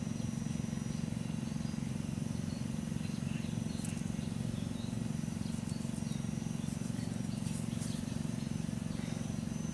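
Outdoor ambience: a steady low hum, with faint bird chirps and insects above it now and then.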